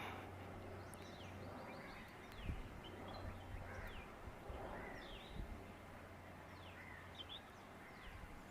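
Small birds calling, with short, high chirps that sweep downward, repeated at irregular intervals over a faint steady low hum.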